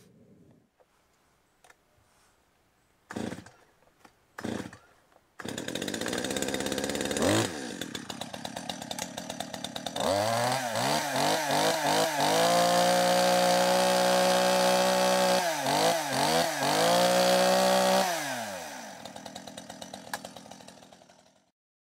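A Stihl two-stroke chainsaw being pull-started. Two short sputtering pulls come first, then the engine catches and runs fast on the starting throttle before dropping to an uneven idle. It then revs up to a steady full-throttle scream, with a few quick throttle dips, and falls back to idle before cutting off near the end.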